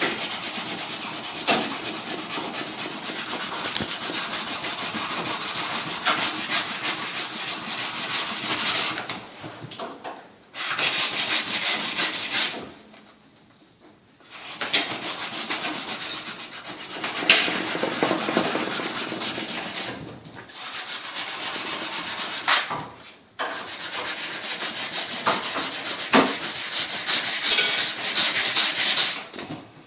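Sanding the wood of a longbow being shaped, a rough rubbing scratch that runs in long spells broken by several short pauses.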